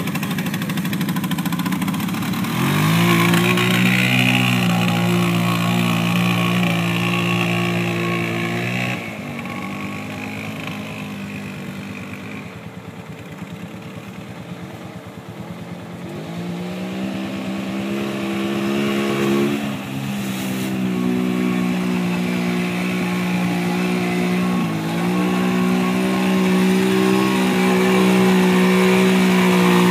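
Kawasaki Bayou 220 two-wheel-drive ATV's single-cylinder four-stroke engine revving up and running hard under load through mud. It fades for several seconds in the middle, then revs up again and holds high revs, stepping up once more near the end.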